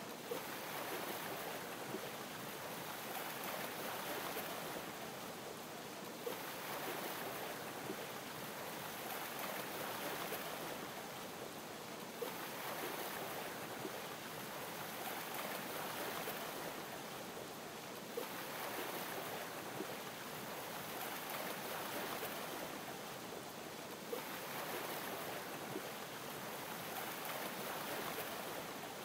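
Ocean waves lapping gently: a steady wash of water that swells and eases about every six seconds, with a small tick near each swell.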